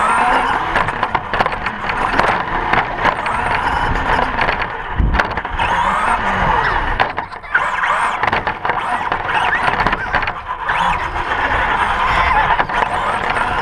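Remote-control car running on the concrete of a skate park: its electric motor whines, rising and falling as it speeds up and slows, over the rush and clatter of its small tyres.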